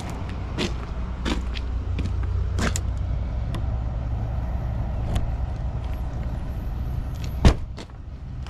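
A vehicle engine running at a steady low rumble, with scattered light clicks and one sharp thump about seven and a half seconds in.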